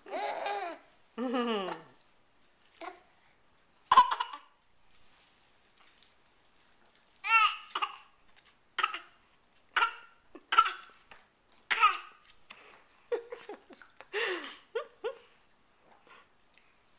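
A six-month-old baby yelling and squealing in short calls, about a dozen of them with pauses between, some sliding down in pitch. A sharp knock sounds about four seconds in.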